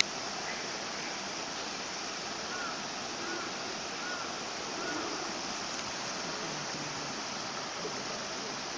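Steady outdoor hiss like running water, with four short, faint chirps, each rising and falling, evenly spaced about a second apart, starting a couple of seconds in.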